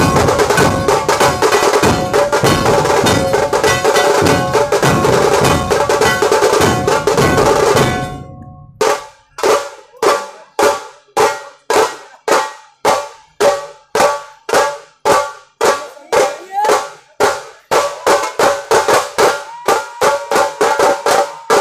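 Dhol tasha ensemble, barrel dhols and tasha kettle drums, drumming a dense, full beat that breaks off about eight seconds in. It gives way to a slower pattern of separate ringing strikes, about two a second, and the full beat comes back near the end.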